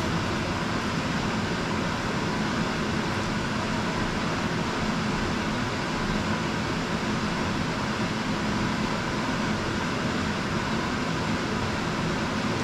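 Steady hum and rush of a ventilation unit moving air, even in level, with no knocks or clicks.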